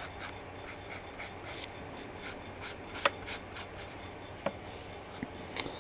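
Pencil scratching on paper in quick short strokes, about three or four a second, with a few sharper ticks of the lead against the page.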